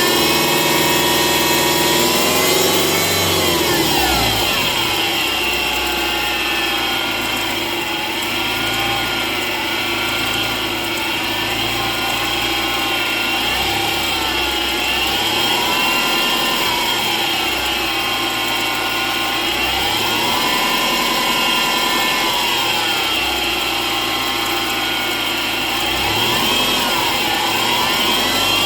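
Subaru Legacy BL5 engine running with the high-pitched metallic noise of a failing belt tensioner pulley, a sign that the pulley is broken. The pitch of the whole sound swells up and back down several times as the engine speed changes.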